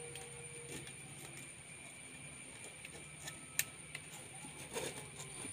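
Faint handling noise of a nylon mesh net being tied onto a strainer ring with thin wire: a few sharp ticks and small rustles, over a steady high-pitched background whine and low hum.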